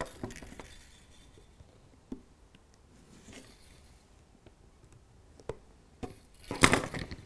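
Small sprue cutters snipping and picking at the moulded plastic sleeper webbing of a Peco three-way point: a few faint isolated clicks, then a quick cluster of sharper snips and scrapes near the end.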